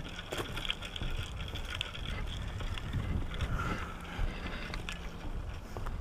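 Footsteps on a wooden boardwalk and camera handling noise while walking, with irregular low thumps and soft knocks and a little wind on the microphone.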